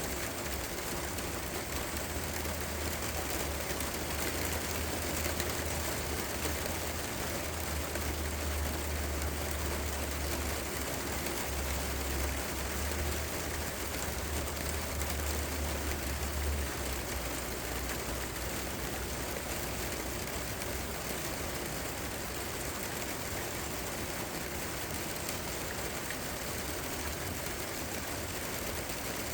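Steady rain falling, an even hiss. A low rumble underneath fades out a little over halfway through.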